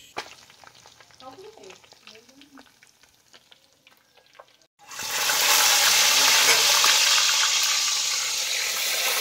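A few faint clicks, then about five seconds in a loud, steady sizzle starts suddenly: fish frying in hot oil.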